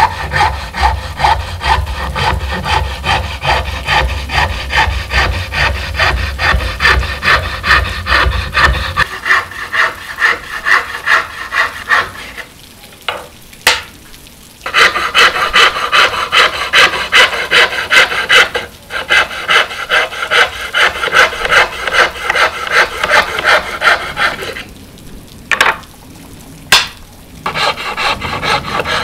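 Hand file rasping along the edge of a wooden board in quick repeated strokes, about two a second. The filing stops twice for a few seconds, with a few sharp knocks in the pauses.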